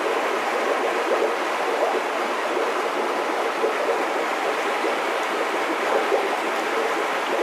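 Steady rushing water sound, even and unbroken.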